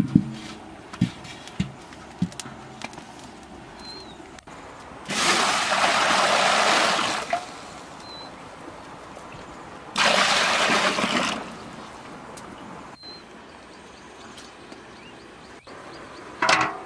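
Two bursts of rushing water: one of about two seconds a few seconds in, then a shorter one about ten seconds in. Light knocks and a few faint bird chirps come between them.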